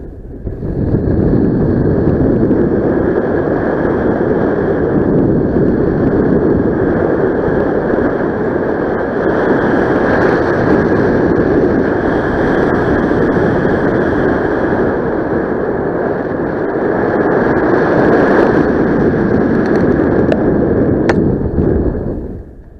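Loud, steady rush of airflow buffeting the camera microphone in paragliding flight.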